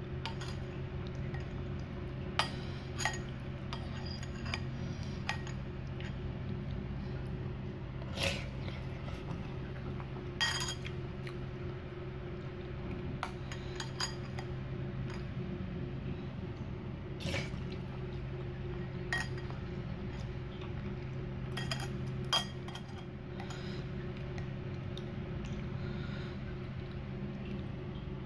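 A metal spoon clinking against a bowl of noodle soup in a dozen or so sharp, ringing clinks scattered irregularly every one to three seconds, over a steady low hum.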